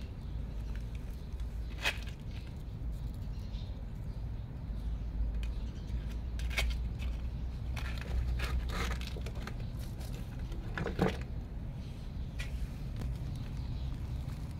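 Cats play-fighting and scuffling on a concrete floor: scattered light scrapes and taps, one sharper tap late on, over a steady low rumble.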